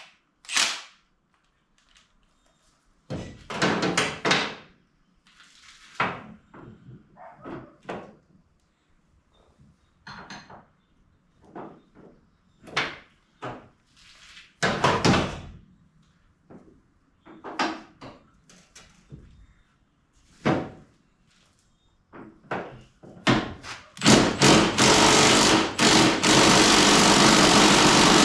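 Scattered clanks and knocks of tools and metal parts being worked on a truck body. About 24 seconds in, a power tool starts and runs loudly to the end.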